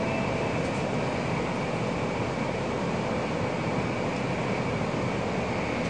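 Steady running noise of a Tokaido Shinkansen train at speed, an even rumble and hiss heard from inside the passenger cabin.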